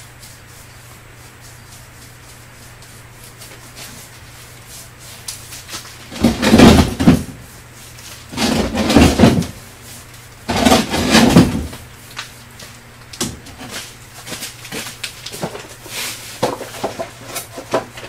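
Stiff plastic paver molds clattering as they are handled and stacked on a plywood workbench: three loud clattering bursts about two seconds apart, then lighter knocks and taps.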